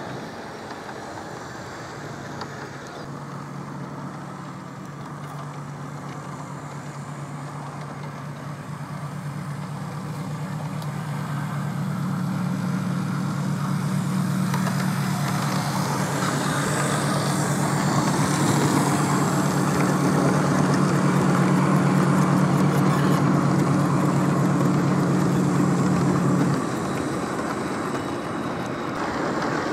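Model Class 37 diesel locomotive running along the track with its container train. A steady low drone with rolling noise grows louder as the locomotive approaches, then the drone cuts off suddenly near the end.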